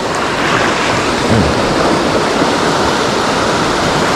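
Ocean surf washing against the shoreline, a steady rushing noise, with wind buffeting the microphone.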